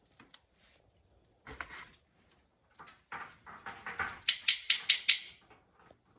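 Melanistic Asian water monitor biting and chewing raw chicken gizzards: scattered wet crunches, then a run of sharp clicking bites that grows louder, about half a dozen loud ones in quick succession near the end.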